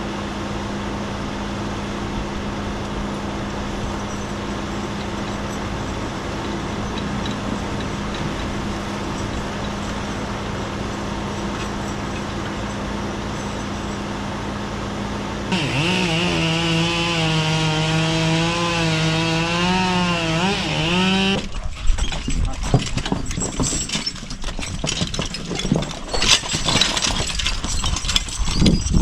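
A steady engine hum, then about 15 seconds in a chainsaw cuts into wood for several seconds, its pitch wavering under load. After that comes irregular knocking and clatter of wood.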